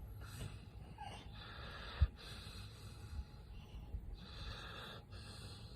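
A dog breathing noisily through its nose in short bursts, four or five of them, with a soft thump about two seconds in.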